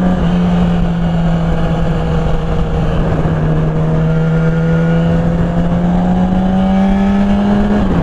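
Sport motorcycle engine running at a steady cruise, heard from the rider's seat over broad road and wind noise. Its note slowly climbs in pitch over the last few seconds as the bike speeds up a little.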